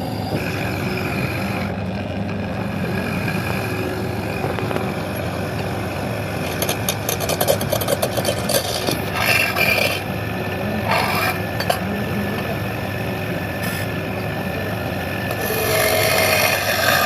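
Wood lathe running steadily while a turning tool cuts into the spinning sheesham wood, with scraping bursts of cutting in the middle and again near the end.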